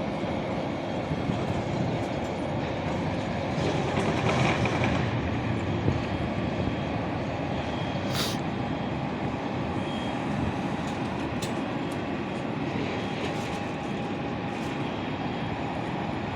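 Steady rumbling noise of an aeroplane on the ground, with a few short clicks and rattles.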